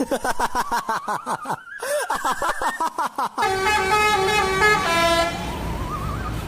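Telolet-style Basuri multi-tone bus horn playing a melody of sound effects. For about three seconds it makes rapid chirping sweeps up and down in pitch, then steady chords of several notes that change pitch, and near the end a wavering single tone.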